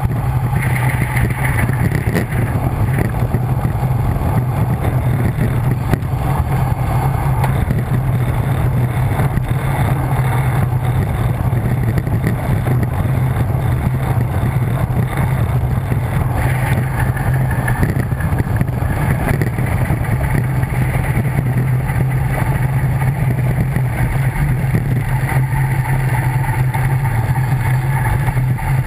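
Steady rush of wind buffeting the microphone of a camera mounted on a bicycle descending a mountain road at speed: a loud, even low rumble with a hiss above it.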